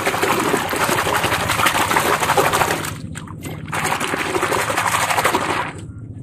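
Foamy, muddy water splashing and sloshing as a hand rapidly scrubs a plastic toy motorcycle under the surface. It comes in two spells, with a short break just after three seconds, and dies down near the end.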